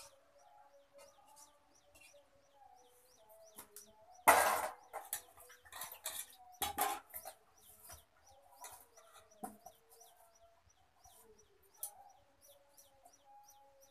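Chickens clucking, with a steady run of short high peeping calls, about two or three a second. A few louder clatters of steel utensils come around the middle.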